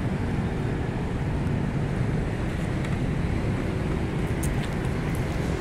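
Steady low rumble of traffic, with wind buffeting the microphone. A few faint high ticks come about four to five seconds in.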